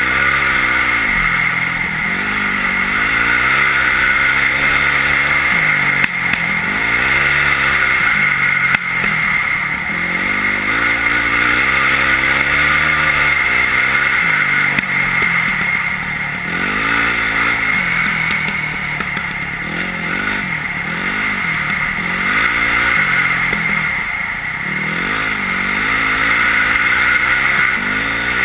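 Yamaha WR450F's single-cylinder four-stroke engine through an Akrapovič exhaust, climbing and dropping in revs again and again as the bike accelerates and backs off while riding. A steady rushing noise runs underneath, with a couple of brief knocks.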